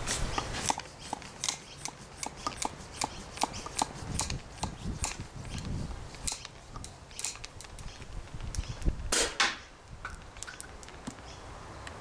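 Handling of a homemade plastic-bottle air blaster: irregular sharp plastic clicks and knocks, with one louder, longer rush of noise about nine seconds in.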